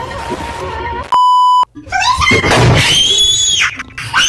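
A loud, steady electronic bleep lasting about half a second, like a censor beep, then a brief gap and a long, high-pitched scream that rises and holds, with a second scream starting near the end.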